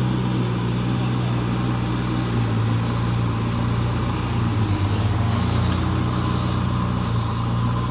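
JCB backhoe loader's diesel engine running steadily while being load-tested after a repair, with a brief wavering in its note a little past the middle.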